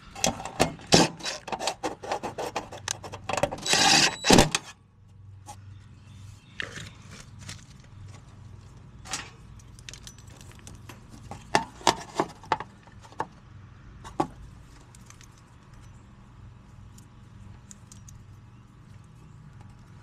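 Wires and metal parts being handled inside a heat pump outdoor unit's control panel: a quick run of clicks, rattles and scrapes with a brief louder burst about four seconds in, then scattered clicks over a steady low hum.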